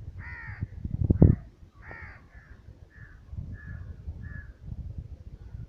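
A bird calling about seven times, the first two calls longer and louder, the rest short and fainter. A loud low thud comes about a second in, over a low rumble.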